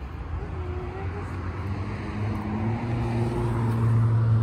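A steady, low engine hum at one unchanging pitch, growing louder through the second half.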